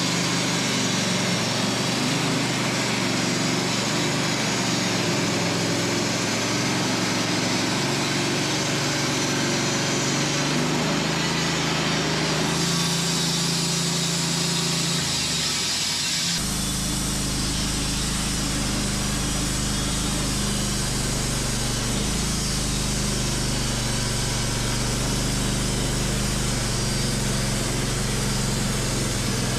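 Wood-Mizer LT15 band sawmill running steadily, its band blade cutting through a maple log. The pitch and tone of the machine shift abruptly about 12 seconds in and again about 16 seconds in.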